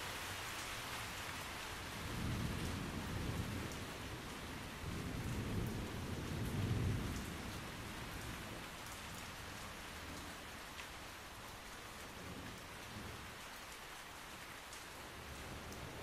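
Rain falling through a tree canopy, heard from beneath it: a steady patter with scattered drops. A low rumble of thunder swells up about two seconds in, rolls on in a few waves and dies away by about eight seconds.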